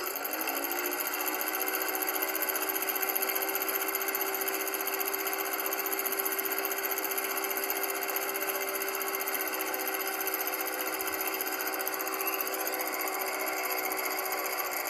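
Film projector sound effect: the motor winds up over the first second, then runs on with a steady hum and a fast, even clatter.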